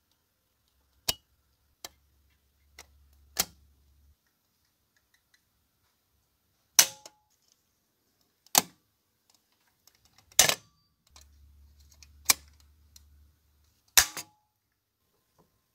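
Hand pop rivet gun setting blind rivets into a metal lantern body: a string of about nine sharp snaps and clicks at irregular intervals, a few of them much louder than the rest.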